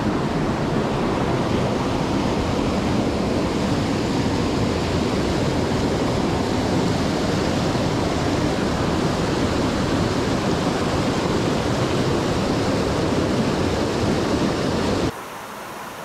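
Fast-flowing mountain stream rushing, a steady noise of water that cuts off suddenly about fifteen seconds in.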